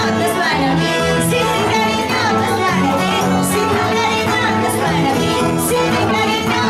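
A woman singing over violin and Andean harp in a lively Andean folk tune.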